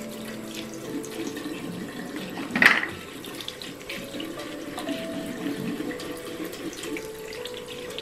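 Bathroom tap running into a sink while makeup brushes are rubbed and rinsed by hand under the stream, with one brief louder burst about two and a half seconds in. The water stops near the end.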